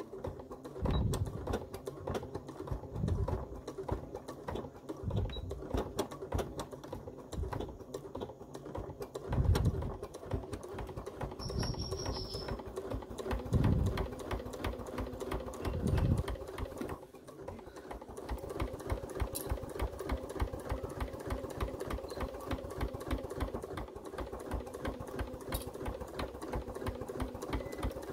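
Elna Excellence 720 Pro sewing machine stitching a seam through layered cotton, a fast, even run of needle strokes over the motor's hum. A few dull knocks come in the first half, a brief high tone sounds near the middle, and the stitching pauses for a moment a little past halfway before it carries on.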